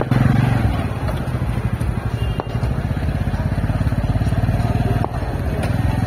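Motorcycle engine running steadily at a slow pace, its low firing pulse unbroken.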